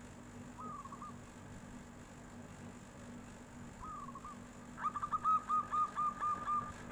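Zebra dove cooing: two short, soft coos, then a fast run of about nine clear, flute-like coo notes near the end.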